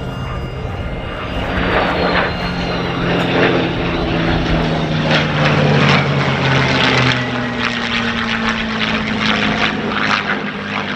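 P-51D Mustang's Packard Merlin V-12 engine running as the fighter flies past in formation with an F-16C. Its engine note slides slowly down in pitch, and the sound swells louder about a second and a half in.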